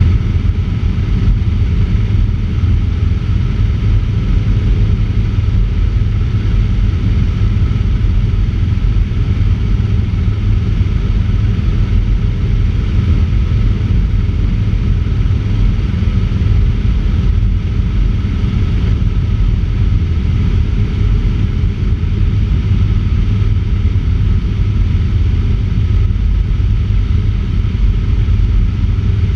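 Cessna 150 in flight: its engine and propeller drone steadily, mixed with a heavy low rush of airflow on a microphone mounted out on the wing.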